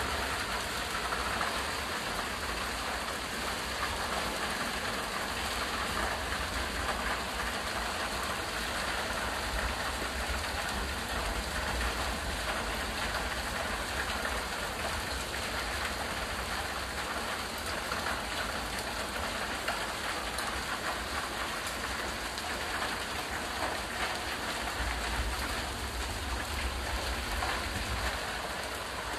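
Hailstorm: hailstones and rain falling steadily on stone paving, a dense hiss of countless small hits.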